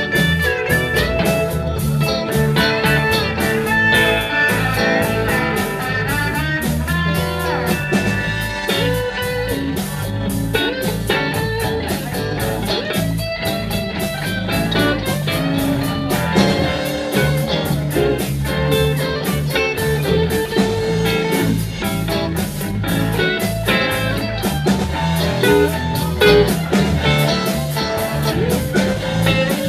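Live blues band playing an instrumental passage: electric guitars over drums, with a lead guitar playing held and bending notes.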